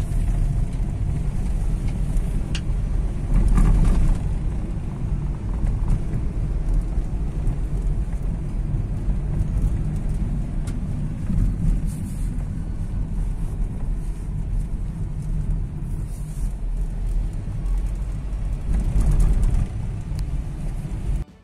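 A car driving along a highway, heard from inside the cabin: a steady low rumble of road and engine noise.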